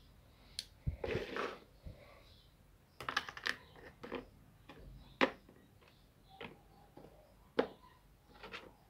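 Small plastic miniature dollhouse furniture being handled and set down on a cardboard floor. It gives a series of light, irregular clacks and taps, with a short rustle of handling about a second in.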